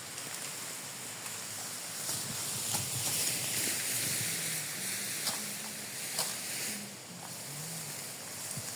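Strong wind blowing, a gust swelling about two seconds in and easing off about seven seconds in, with a few short clicks through it.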